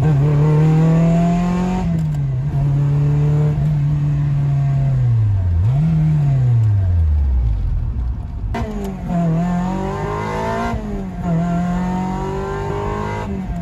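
Car with a freshly swapped Honda VTEC engine, running on a base map with VTEC not yet engaged, being driven. Engine pitch holds steady, then falls away. About eight and a half seconds in it pulls hard with rising revs, drops once in a shift and climbs again.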